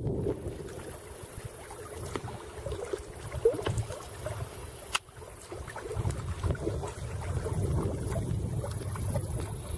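Wind gusting over the microphone with small waves lapping and splashing at the lake's edge, broken by a few small clicks.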